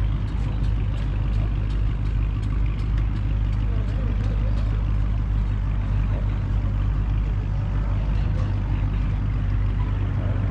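A vehicle engine running with a steady low drone, with light regular ticking over the first few seconds.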